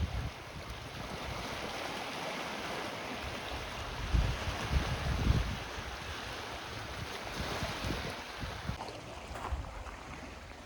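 Seaside ambience: steady surf with wind buffeting the microphone, the strongest gusts coming about four to five and a half seconds in.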